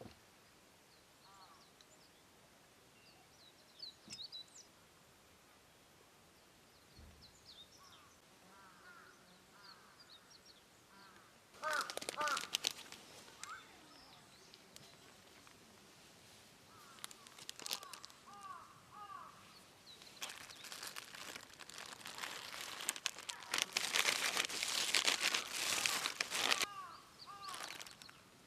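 Birds chirping and calling, with two bursts of crackling, rustling noise, one about twelve seconds in and a longer one building from about twenty seconds and lasting several seconds.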